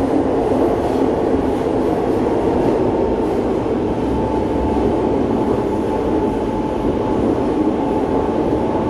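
Inside a C651 metro train car running between stations: a steady rumble of wheels on rail and running gear, with a faint steady whine joining about six seconds in.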